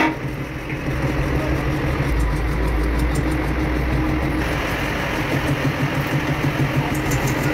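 An engine running steadily at idle, a low hum that grows deeper and heavier for a couple of seconds in the middle.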